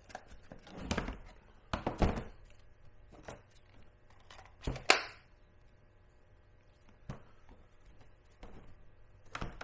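Hard plastic knocks and clicks as a cordless impact wrench and its lithium-ion battery pack are lifted out of a plastic carrying case and handled, a few separate thunks with quiet between them. The sharpest click, about halfway through, fits the battery pack being latched onto the tool.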